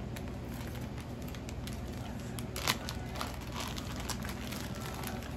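Clear plastic bag crinkling and crackling as it is handled and opened, with one sharper crackle about halfway through.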